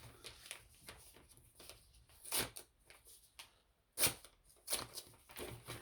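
Paper and envelope rustling and crinkling as an envelope is handled and opened, with a few sharper crackles about two and a half, four and nearly five seconds in.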